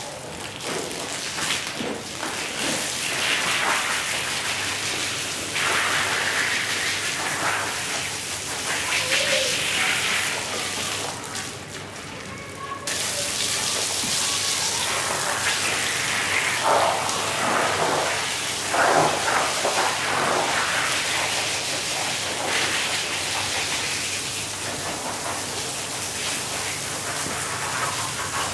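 Water spraying and splashing onto a wet rug during washing: a steady hiss with louder surges of splashing every few seconds.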